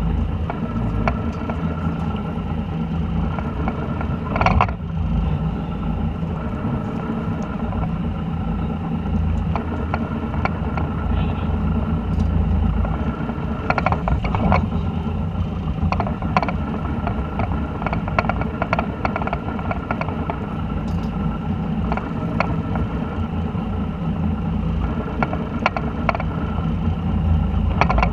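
Fishing boat's engine running with a steady low drone, with scattered clicks and knocks from gear on deck.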